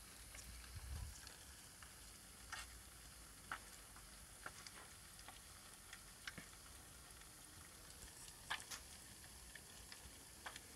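Faint sizzling of butter frying eggs in a copper pan, with scattered small pops and crackles at irregular moments.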